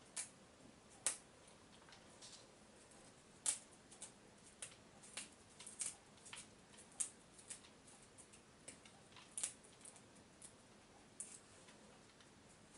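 Rosemary needles being stripped off the sprigs by hand: faint, scattered small clicks and rustles at an uneven pace, as the needles snap off and drop onto a cutting board.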